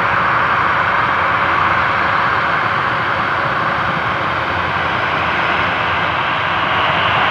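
Airbus A400M's four TP400 turboprop engines and their eight-bladed propellers running on the runway before takeoff, a loud, steady, even noise.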